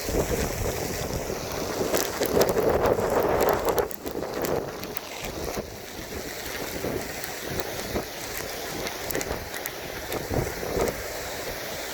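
Strong gusty wind buffeting the microphone, with a loud gust about two to four seconds in.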